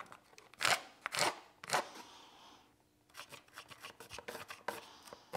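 Scissors cutting through a cardboard template: three strong snips about half a second apart, then a run of quicker, lighter snips and clicks near the end.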